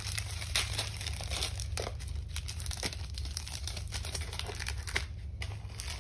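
Plastic wrapper of a trading-card pack crinkling as it is handled, a run of irregular crackles.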